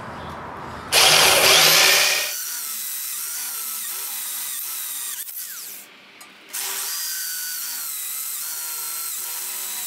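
Handheld electric drill with a step bit boring out holes in steel square tubing. About a second in there is a loud stretch of cutting, then the drill runs with a steady whine. It stops briefly near the middle and starts again.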